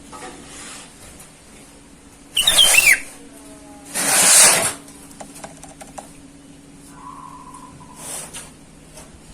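Sooty-headed bulbul (kutilang) calling: a short loud call with quick falling whistled notes a little over two seconds in, then a loud harsh burst about a second later. A faint steady hum sits underneath.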